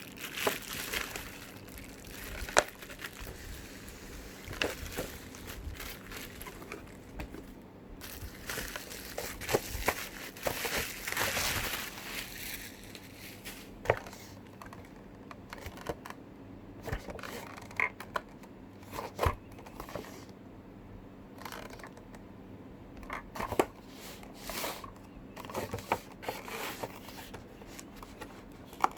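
Packaging of a boxed diecast model car being handled and opened: crinkling and rustling in irregular bouts, with scattered sharp clicks and snaps.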